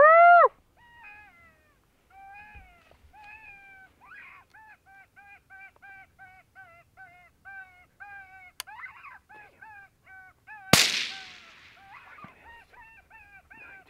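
A loud, rising-and-falling pitched call opens, followed by a steady run of short, cawing calls at about two a second from the hunters' predator call. About eleven seconds in, a single rifle shot cracks and trails off with an echo over about a second.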